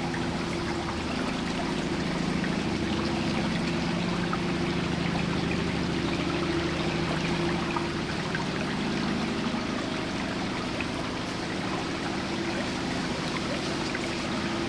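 Small petrol outboard motor running steadily at low cruising speed, a steady low drone, with water trickling and splashing over it.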